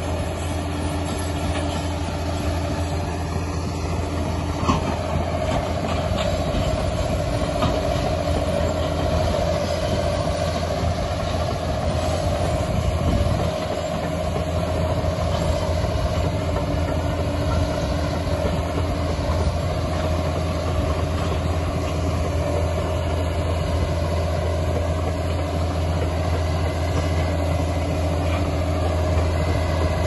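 Liebherr PR 746 crawler dozer pushing a load of earth with its blade: the diesel engine runs steadily under load, with the clatter of the steel tracks and a steady whine over the low engine hum.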